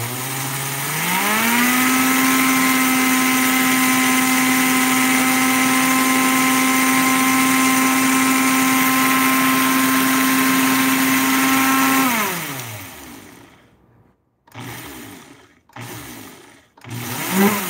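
NutriBullet blender grinding dry bulgur wheat into a finer meal: the motor speeds up to a steady high whine, runs for about ten seconds, winds down, then gives three short pulses near the end.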